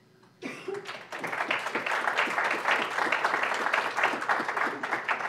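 An audience applauding. The clapping starts about half a second in, builds over the next second, and keeps up until it dies away at the very end.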